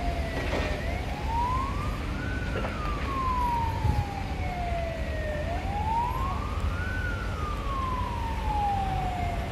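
A siren wailing: its pitch rises for about a second and a half, then falls slowly for about three seconds, over and over, about every four and a half seconds. A fainter second siren gliding down is heard at times, over a steady low rumble.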